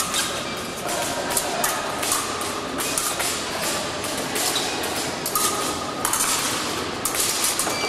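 Épée fencing bout in progress: irregular clacks and knocks of blades meeting and fencers' feet striking the piste, over the steady noise of a sports hall.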